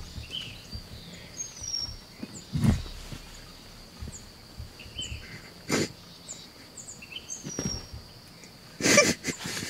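Wild turkey gobbler calling in several short, loud bursts, over small birds chirping and a steady high insect drone.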